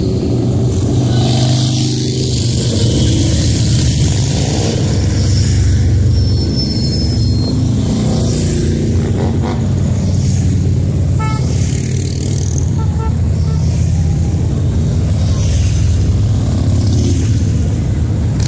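Many motorcycle engines rumbling together as a column of motorcycles rides past, with some engines revving up and down.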